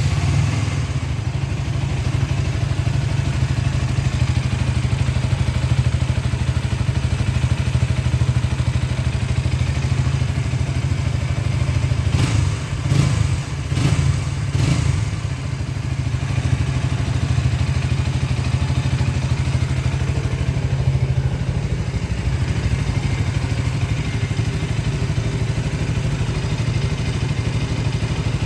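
KTM Duke 200's single-cylinder four-stroke engine idling steadily, with a few quick throttle blips around the middle.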